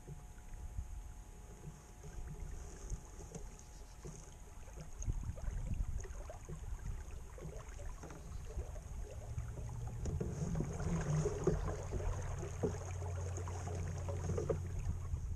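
Water lapping and trickling along the hull of a small wooden sailing skiff under way in light wind, with low wind rumble on the microphone that grows stronger in the second half.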